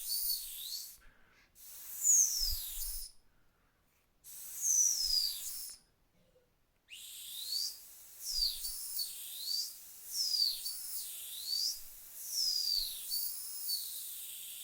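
Dog whistle blown in short, high whistles that fall in pitch and hook briefly upward at the end, over a faint hiss. It sounds three times with two dead-silent gaps between, then settles into a steady run of about one and a half whistles a second.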